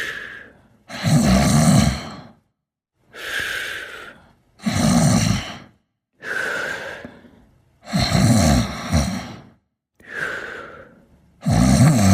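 Snoring in sleep: loud, rattling snores alternate with quieter breaths that carry a brief high whistle, in a steady rhythm of about one snore every three and a half seconds.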